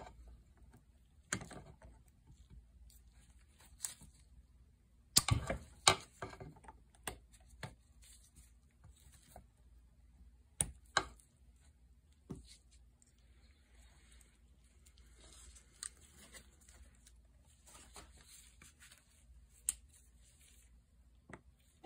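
Hand tools and small metal chainsaw parts being handled during disassembly: scattered clicks and knocks, loudest in a cluster about five to six seconds in, with faint scraping and rustling in the middle stretch.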